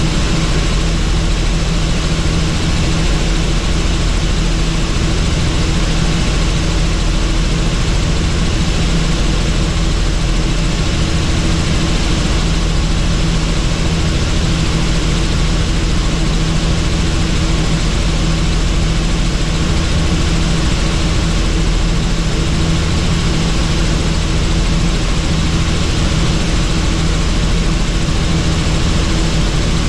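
Helicopter in level flight: the engine and rotor give a steady, unchanging drone, a low hum under a broad rushing noise.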